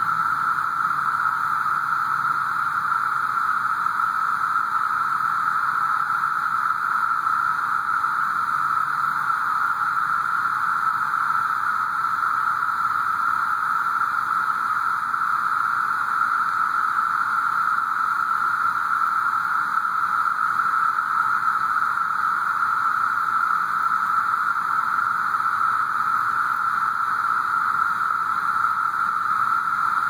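Chorus of cicadas in the trees: a steady, unbroken buzzing drone at one high pitch that neither rises nor falls.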